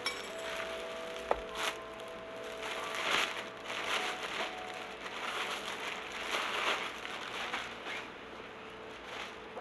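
Plastic wrapping crinkling and rustling in repeated bursts as a boxed patio umbrella is pulled out of its plastic bag, with one sharp knock a little over a second in.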